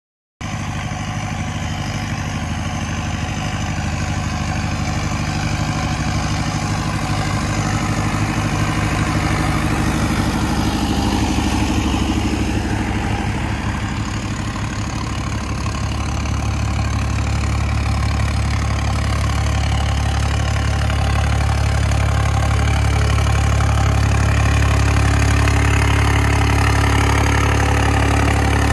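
Farm tractor's diesel engine running steadily while pulling a field implement. The engine dips a little in loudness about halfway through, then comes back louder and steadier.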